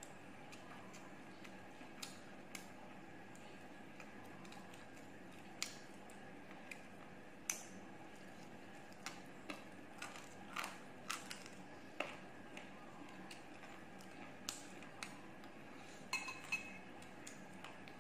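A fried chicken wing being torn apart by hand and chewed: scattered small clicks and crackles over a steady faint hiss, the sharpest ones around the middle and near the end.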